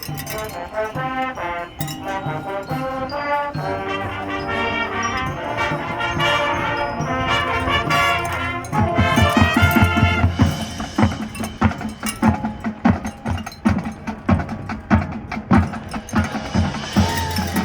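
High school marching band playing: brass sustaining a melody over light percussion, then about nine seconds in the drum line enters with heavy, repeated bass and snare hits and the music gets louder.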